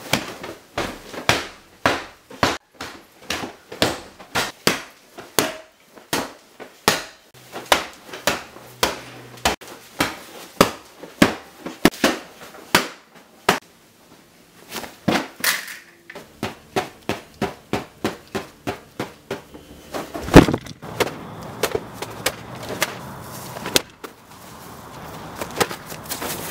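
Footsteps and knocks on a hard floor, about one to two a second, as a person hurries through a house carrying a bag. About twenty seconds in there is one loud bang, and after it a steady outdoor hiss with further footsteps.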